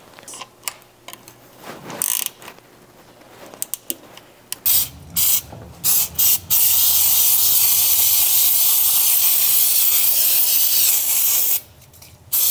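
Aerosol spray can of cleaner sprayed onto an oil-soaked oil pan to wash off leaked oil, after a few light clicks. It gives several short squirts, then a steady hiss of about five seconds, and another spray near the end.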